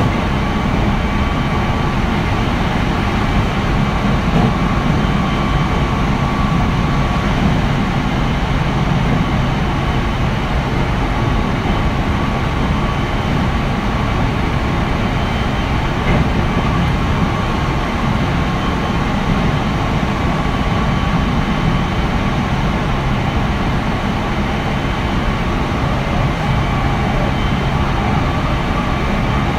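Meitetsu 3100 series electric train with Toshiba IGBT inverter drive, heard from inside the car running at a steady speed between stations. A continuous rumble of wheels on rail with a few faint steady tones and no rise or fall in pitch.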